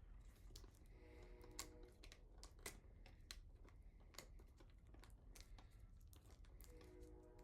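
Plastic shrink wrap being torn and crinkled off a metal trading-card tin: faint, irregular crackles and snaps.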